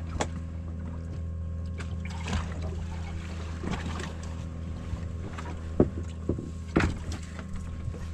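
Outboard motor idling steadily, with a few sharp knocks and clicks, the loudest about six and seven seconds in.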